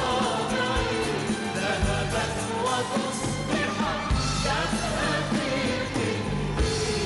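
A male singer singing an Arabic song live into a microphone, with gliding, drawn-out vocal lines over a full orchestra that includes strings.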